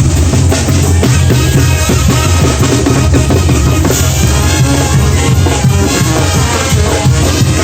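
Two Mexican bandas playing together: wind and brass lines over a steady bass and drums, with bass drum and snare hits keeping the beat.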